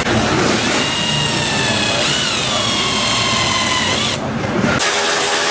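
Power drill boring small pilot holes through a truck's sheet-metal fender, its whine dipping and recovering in pitch. Near the end the sound switches abruptly to a steadier hum.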